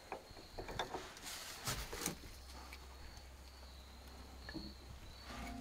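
Faint, scattered clicks and light knocks of hand-tool work on truck parts, mostly in the first two seconds, with a faint steady high whine. Music comes in near the end.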